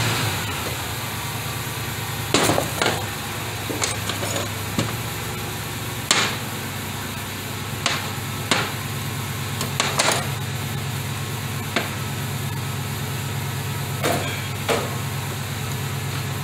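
Metal parts of a 4T40E automatic transmission knocking and clinking against each other and the workbench as they are handled, about a dozen sharp knocks at irregular intervals. Under them runs a steady low engine hum, as from a vehicle idling after being started just before.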